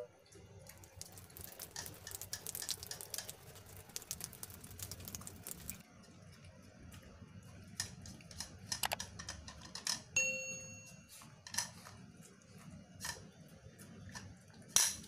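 Small dog eating fried rice off a plate: faint, quick clicks of chewing and licking, busiest in the first few seconds and sparser after, with the odd sharper click against the plate. A short ding sounds about ten seconds in.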